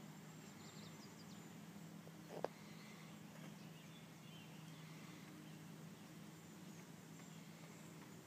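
Near silence: faint outdoor ambience with a steady low hum and scattered faint bird chirps, broken by a single sharp click about two and a half seconds in.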